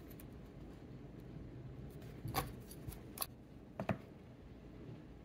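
A few short, light clicks and taps between about two and four seconds in, as a small circuit board with its resistor leads is handled and set down on a wooden workbench for soldering, over a faint low room hum.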